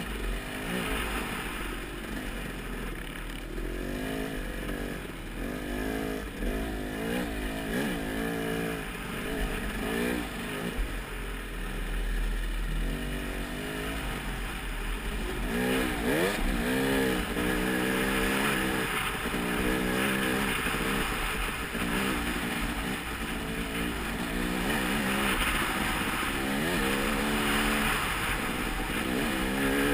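Off-road motorcycle engine racing over rough ground, its revs rising and falling over and over, with a steady rushing noise underneath.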